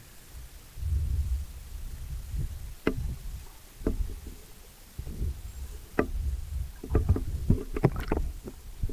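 Muffled water sound heard through a submerged camera's microphone: a low rumble of moving water starting about a second in, with scattered sharp clicks and pops that come thicker over the last two seconds.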